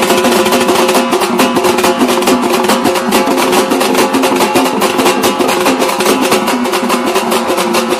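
Background music with a fast, steady drumbeat over a pitched melody.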